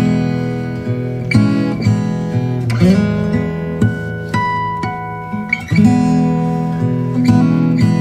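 Background music: an acoustic guitar strumming chords, a new chord about every one and a half seconds.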